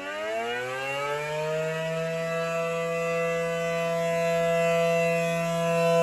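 ACA P-10 outdoor warning siren wailing during its test, its horn rotating: the pitch climbs over the first two seconds, holds steady, and starts to fall at the end, growing slowly louder as the horn swings round.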